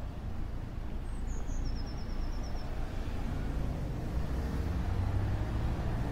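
Steady low outdoor rumble like distant road traffic, with a small bird's short high trill of quick repeated notes about a second in.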